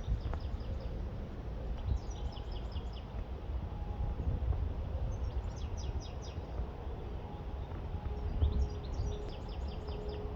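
A songbird singing three phrases of quick high chirps a few seconds apart, over a steady low rumble of wind on the microphone.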